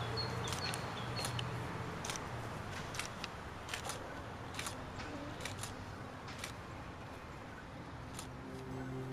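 Faint irregular clicks and ticks over a low hiss, with a low hum fading out over the first two seconds and soft music beginning near the end.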